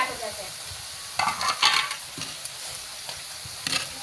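Methi pakodas deep-frying in oil in a kadai, a steady sizzle, with a metal wire skimmer stirring and scraping them in the pan for a moment about a second in and again briefly near the end.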